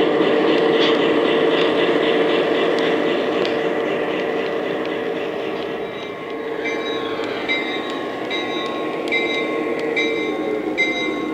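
Lionel Legacy GP20 O-gauge model locomotive running on three-rail track, its sound system giving a steady diesel engine hum with a fast regular clicking in the first half. From about six and a half seconds in, the locomotive bell rings steadily, about twice a second.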